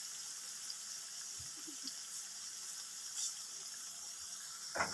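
Vegetable pakoras deep-frying in hot oil in a karahi, a steady hiss of bubbling oil as they brown in their last minutes of frying. A short louder sound comes just before the end.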